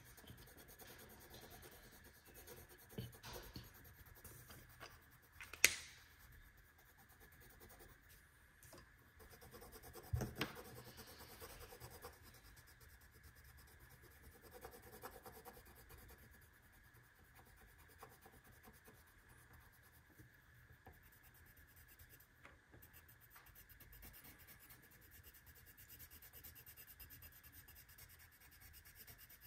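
Felt-tip markers rubbing and scratching faintly across marker paper as they draw and colour, with a few sharp clicks, the loudest about six seconds in.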